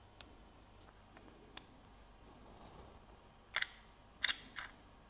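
Sharp little metallic clicks and taps from watchmaking tools on a divers watch case as it is set up to be opened, two of them louder a little past the middle.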